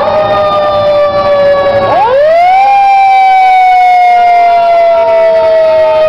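Fire engine sirens sounding loudly, several tones at once. About two seconds in, one siren winds up sharply in pitch, then slowly sinks as it coasts down.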